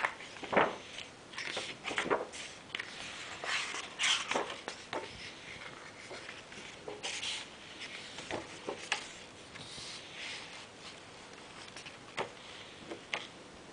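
Glossy pages of a large hardcover art book being turned and handled: a run of short paper swishes and rubs through the first part, then a few single flicks near the end.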